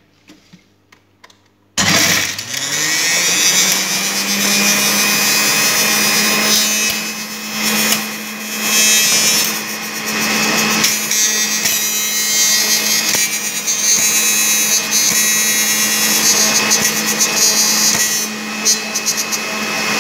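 Electric centrifugal juicer switched on about two seconds in, its motor whining up to speed and then running steadily and loudly as pomegranate seeds are pushed down the feed tube and shredded.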